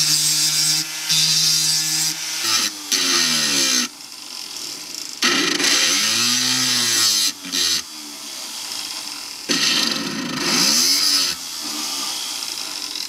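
Rotary tool with a diamond burr grinding a curve into the end of a strip of hardened steel hacksaw blade. It works in several passes of a second or two, with a high grinding hiss, and the motor's pitch drops and rises again during each pass.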